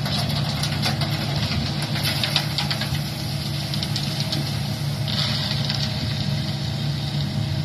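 Concrete mixer truck's diesel engine running steadily, with a run of sharp clicks in the first few seconds and a hiss that joins about five seconds in.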